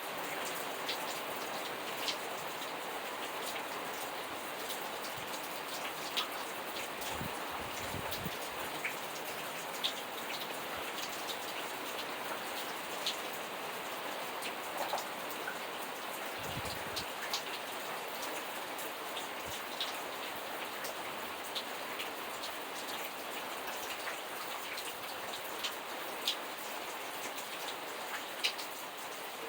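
Steady rain falling, an even hiss with scattered sharp drip ticks of individual drops landing.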